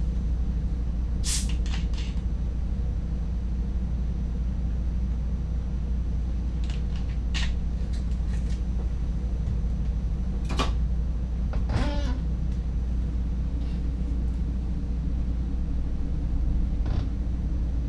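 Steady low rumble of an NS DDZ double-deck electric train running on the track, heard inside the driver's cab, with a handful of short clicks and knocks scattered through.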